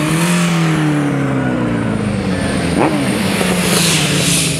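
Classic racing motorcycle engines running on a circuit: one engine note sinks slowly and steadily, another revs up sharply and drops back about three seconds in, and a bike passes close near the end with a rush of noise.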